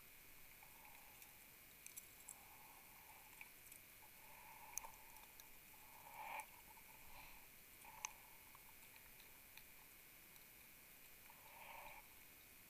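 Faint, muffled breathing of a diver on a closed-circuit rebreather, heard underwater: soft rushes a few seconds apart, with a few sharp clicks in between. There are no exhaust bubbles.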